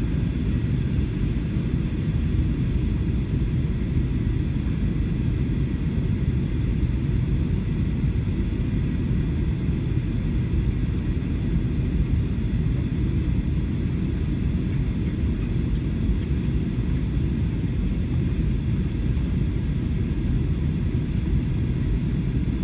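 Steady low rumble of an Airbus A321's cabin on descent, engine and airflow noise heard from a seat behind the wing, with a faint steady whine above it.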